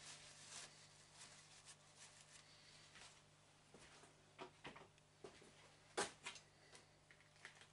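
Near silence with a low steady hum and a few faint ticks and taps of small parts being handled at the lathe, the loudest about six seconds in.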